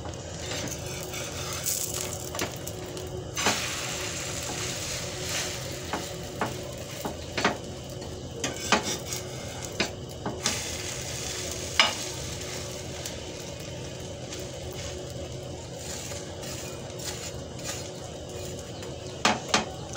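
Bread omelette sizzling in oil in a frying pan, while a steel spatula scrapes and taps against the pan as the slices are turned over. The clicks come at irregular moments over a steady sizzle.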